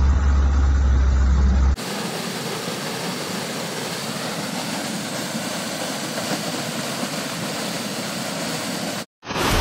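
A rescue boat's motor humming low and steady for under two seconds. After a cut comes a steady rushing noise of floodwater in a street, which cuts out briefly near the end.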